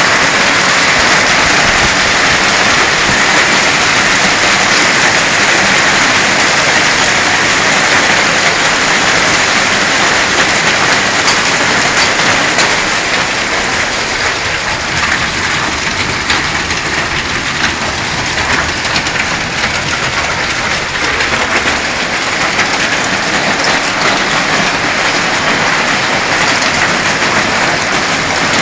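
Heavy hail pelting down: a dense, steady hiss and clatter of countless hailstones striking surfaces.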